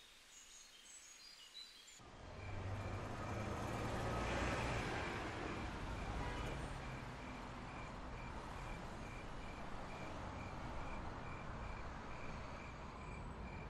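Outdoor night ambience: a steady background noise like distant traffic starts about two seconds in and swells briefly about four seconds in. A faint high chirp repeats about twice a second over it.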